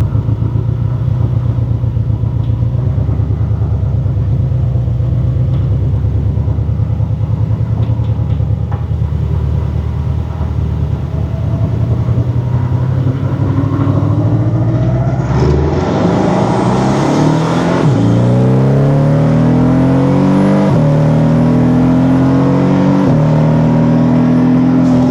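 Porsche 718 Cayman's turbocharged flat-four engine, breathing through an aftermarket turbo inlet pipe: a steady low drone while cruising, then about halfway through the pitch climbs under acceleration and drops back at three upshifts a couple of seconds apart.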